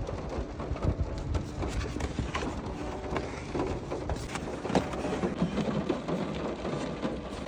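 Rain pattering on the roof and windows of a car, heard from inside the cabin: a steady hiss with many irregular drop taps.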